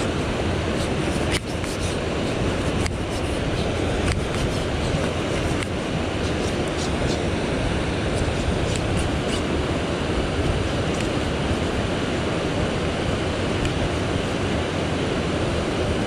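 Steady rushing of a mountain stream's flowing water, with a few faint clicks in the first several seconds.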